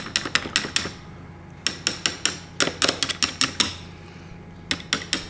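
A screwdriver stirring galvanized steel bolts, nuts and washers in a plastic tub of cleaning vinegar, with quick light metal-on-metal clinks in three runs separated by short pauses. The vinegar is dissolving the zinc coating.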